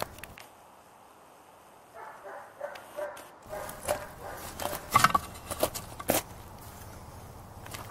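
Lower unit of a Johnson 9.5 HP outboard being pulled off the midsection by hand: a few sharp metal clunks and scrapes about five to six seconds in as the gearcase comes free and its driveshaft slides out of the housing.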